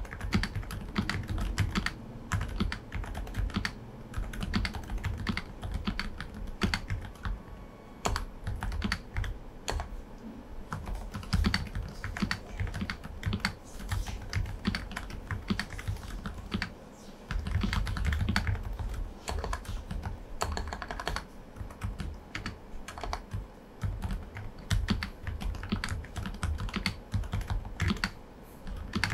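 Typing on an Aula F98 Pro V2 mechanical keyboard fitted with silent switches: a continuous, irregular run of soft keystrokes with a brief pause about two-thirds of the way through.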